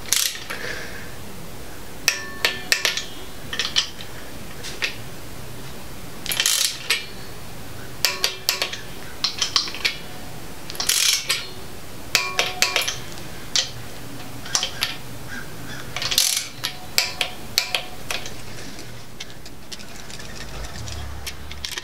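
Socket ratchet clicking in short bursts, with metal tools clinking, as valve cover bolts are run down and tightened.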